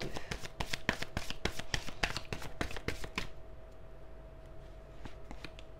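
Tarot cards being shuffled by hand: a quick run of soft clicks and slaps that stops about three seconds in. A faint steady hum runs underneath.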